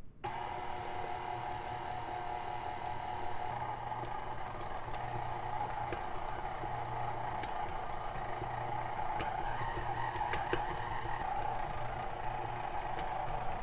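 KitchenAid stand mixer switching on and running steadily on low speed, its paddle beating the flour and cocoa into thick cookie dough.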